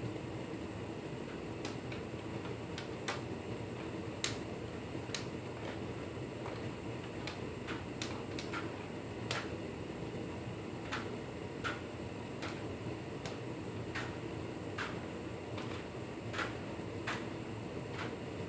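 Hotpoint Ultima S Line tumble dryer running: a steady hum of the motor and fan, with light clicks at irregular intervals, about one a second.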